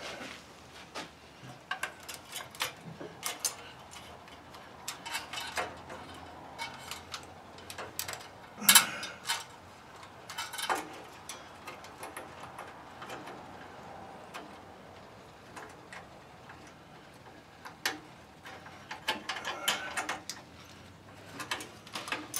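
Irregular small metallic clicks and clinks of a hand tool working the nuts that hold a mini bike's carburetor to the engine, in short clusters, the loudest about nine seconds in.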